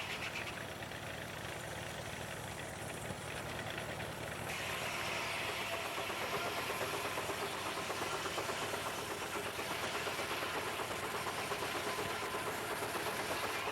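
Steam-engine-driven sawmill running: a steady mechanical clatter and hum that grows louder and brighter about four and a half seconds in.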